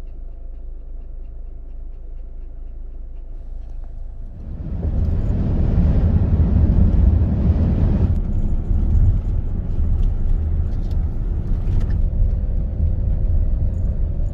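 Low, steady rumble of a vehicle on the move, which gets much louder about four and a half seconds in.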